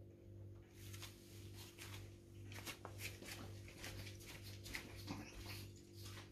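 Seven-week-old Pomeranian puppies play-wrestling on a fleece blanket: faint, irregular scuffling, rustling and claw scratches that start about a second in.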